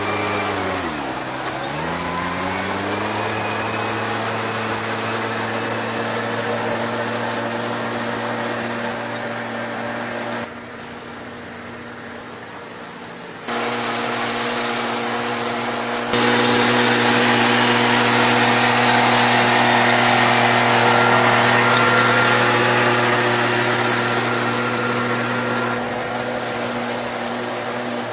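Farm machinery engine running steadily. Its pitch dips briefly about a second in, as if under load, then recovers. The sound drops abruptly quieter for about three seconds near the middle, then comes back, and turns louder and hissier a few seconds later.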